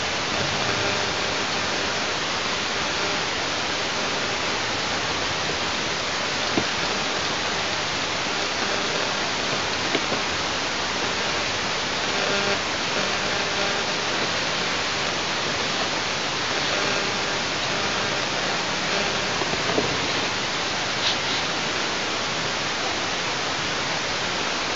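Steady, even hiss of background noise on an outdoor nest camera's microphone, with a few faint clicks from handling at the nest.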